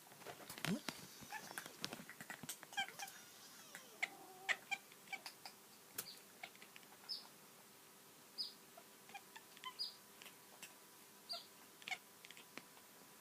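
Domestic cat making a run of short, squeaky chirping meows: the chattering a cat makes when it sees a bird it cannot reach.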